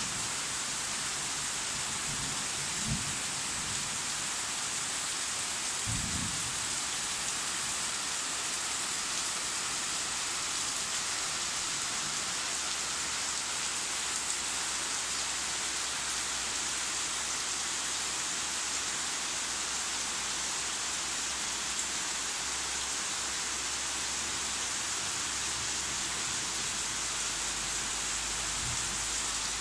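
Heavy tropical rain pouring steadily on the jungle, a dense even hiss. A couple of brief low thumps sound about 3 and 6 seconds in.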